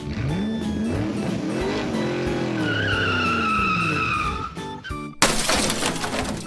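Vehicle engine sound effect revving up and back down, with a high squeal in the middle, over background music. A sudden loud hissing rush follows near the end.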